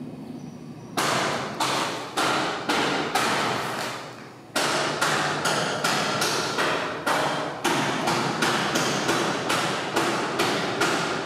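A run of loud, hard knocks, about two a second, each ringing out briefly before the next. They start about a second in, break off for about a second around the four-second mark, then carry on steadily.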